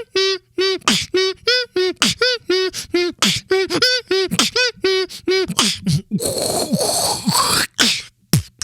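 Beatboxing: short falsetto siren notes, each arching up and down in pitch, played as a two-note melody about three times a second between sharp mouth-percussion hits. About six seconds in comes a breathy, noisy stretch with a rising sweep, then more sharp percussive clicks.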